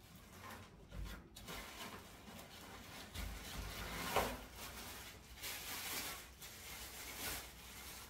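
Rustling and scraping of packaging and statue parts being handled, with a few light knocks, the loudest about four seconds in.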